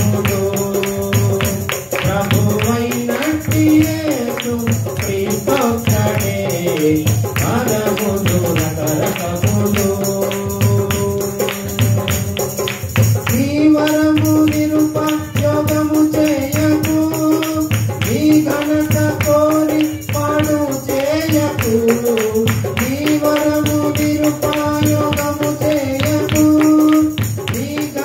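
A man sings a Telugu Christian devotional song into a handheld microphone, holding long notes, over instrumental backing with a steady percussion beat.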